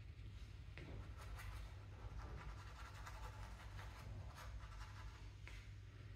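Faint scratching of a paintbrush's bristles working acrylic paint on a paper-plate palette and brushing it onto a stretched canvas, in many short strokes, over a low steady hum.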